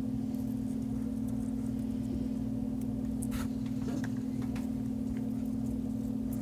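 Steady low machine hum, one unchanging tone. A few faint soft clicks as leaves are pulled off a small plant.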